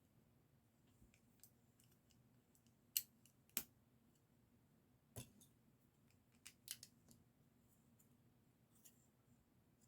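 Lego pieces clicking sharply as they are handled and pressed together. Two clicks come about three seconds in, another just after five seconds, and a quick few near six and a half seconds, over near silence.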